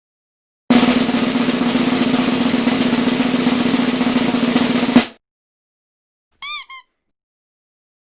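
Snare drum roll sound effect, a steady rattle lasting about four seconds and ending in one sharp hit. About a second and a half later come two quick chirps.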